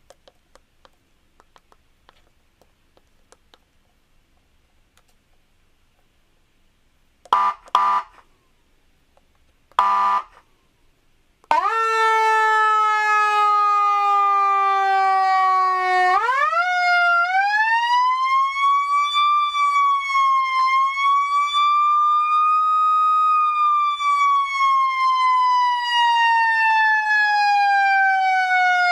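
Electronic siren: a few faint clicks, then two short blasts and a third a couple of seconds later. About twelve seconds in, a continuous wail tone starts. It holds low, then rises to a high pitch and slowly falls away again.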